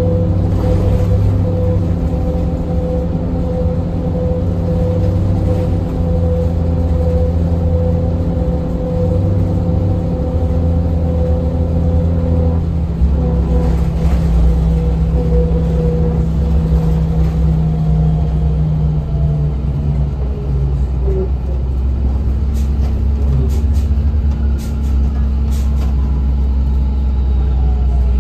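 Interior of a 2007 Orion VII diesel-electric hybrid bus under way: a steady drone from the drivetrain with several held tones that shift about halfway through. Over the last several seconds a falling electric whine sets in, typical of the hybrid drive as the bus slows.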